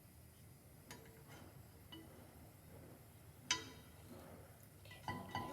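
A few light taps and one sharp, ringing metallic clink about three and a half seconds in: a utensil knocking against a frying pan while small pancakes are flipped.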